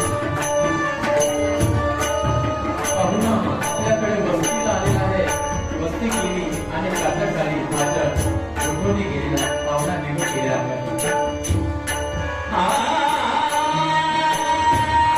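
Marathi bhajan music: steady sustained harmonium chords, small hand cymbals struck on a steady beat about twice a second, and drum. A fuller, louder chord comes in near the end.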